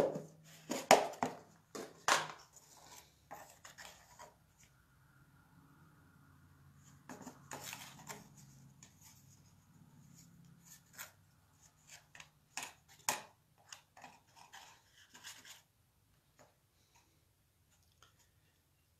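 Plastic storage tub of embossing powder handled: a few sharp clicks and clatters as the lid comes off, then a plastic spoon scraping and scooping gold embossing powder over a cardstock tag, with light taps and rustles that die away a few seconds before the end.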